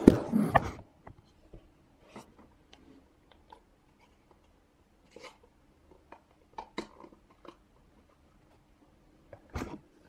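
Handling noise as a shipping box is opened: a short scraping rustle at first, then scattered faint crinkles and taps, with a few louder ones near the end.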